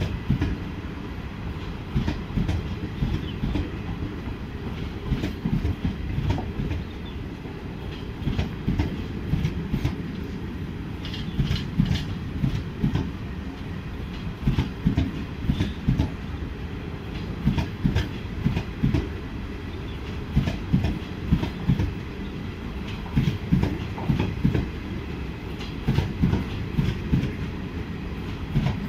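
Indian Railways Jan Shatabdi Express chair-car coaches rolling past at speed, a steady rumble with the wheels clattering over the rail joints in repeated groups of clicks.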